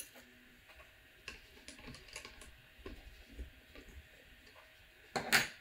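Scattered small clicks and taps from hands handling the metal parts of a mini lathe's chuck and tailstock, with the lathe not running. A short, louder rustling burst comes near the end.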